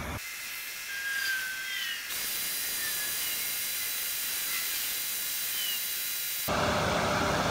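Steady high-pitched hiss, with a few faint short chirps and whistles over it and the low sounds cut away. Fuller background noise comes back near the end.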